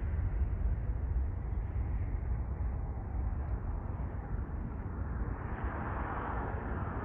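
Airbus A350-900's Rolls-Royce Trent XWB turbofans at takeoff thrust: a steady low rumble as the jet rotates and lifts off.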